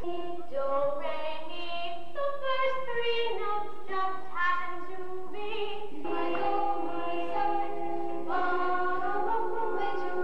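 Children's voices singing a musical number together, shorter sung notes giving way to long held notes about halfway through.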